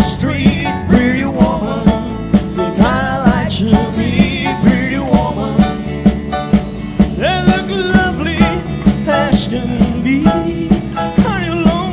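Live rock-and-roll band playing an instrumental passage: drums keep a steady beat of about two hits a second under bass and electric guitar, with lead lines sliding and wavering in pitch.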